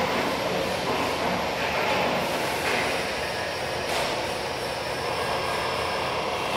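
Steady machinery noise of a metalworking shop, with one brief knock about four seconds in.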